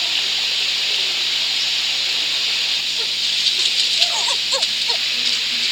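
Steady hiss with a run of short, high squeaky animal calls starting about three seconds in.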